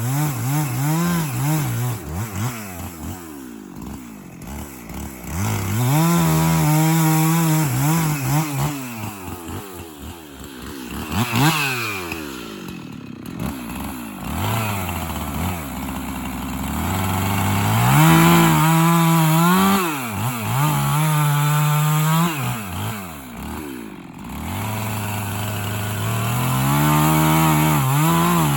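Two-stroke chainsaw revving up and cutting wood, its engine pitch climbing and falling again and again as it goes into and out of cuts. It drops back to a lower idle several times between cuts.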